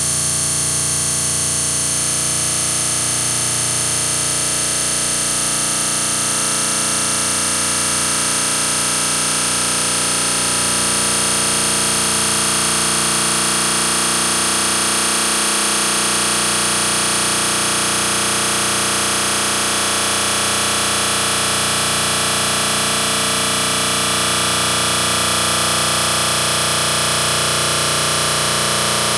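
A steady, dense electronic drone: many held tones layered with hiss and a high thin tone on top, barely changing throughout.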